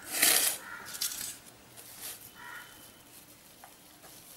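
Hands working a moist ground soya-chunk mixture over a steel bowl and setting a rolled ball on a steel plate: a short scraping rustle at the start, then a few fainter handling sounds.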